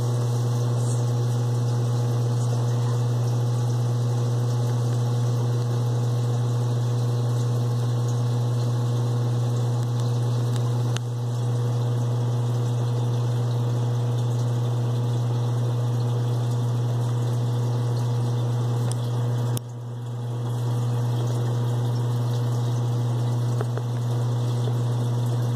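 Saltwater aquarium pump running with a steady low hum over the rushing hiss of circulating water. The hum drops briefly twice, about 11 and 19 seconds in.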